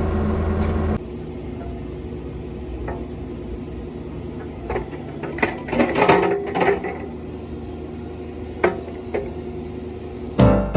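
Cat 305 mini excavator's diesel engine running steadily, dropping much quieter about a second in. A run of metallic clanks and scrapes follows in the middle, with a couple of single knocks after it. Piano music starts just before the end.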